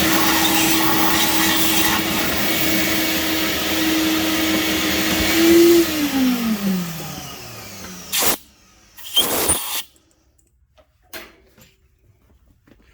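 An electric shop motor running with a loud rushing noise and a steady whine. About six seconds in it is switched off and the whine slides down in pitch as it winds down. Two short rushes of noise follow, then a few faint clicks.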